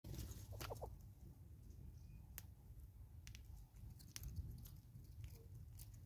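Faint, scattered sharp clicks and ticks of a squirrel feeding on seed at a bottle feeder, over a low steady rumble.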